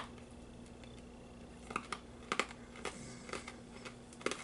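A hard lime candy with a chocolate filling cracking between the teeth as it is bitten, then crunched: one sharp crack at the start, followed by about five separate short crunches spread over the next few seconds.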